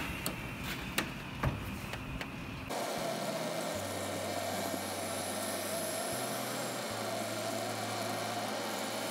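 A few sharp clicks and knocks at the grill, then a steady mechanical hum as the whole chicken turns on the gas grill's rotisserie spit.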